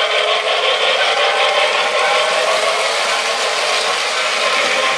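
O gauge electric model trains running on three-rail track: a steady rattle and whir of wheels and motors as the cars pass close by.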